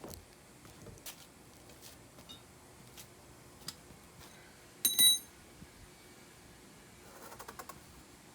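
Scattered light metallic clicks and knocks of tools and bike parts being handled, with one loud ringing metal clank about five seconds in. Near the end comes a quick run of small ticks.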